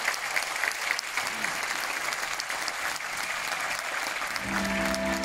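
Audience applauding, a dense patter of many hands clapping. About four seconds in, music with long held notes starts up beneath the clapping.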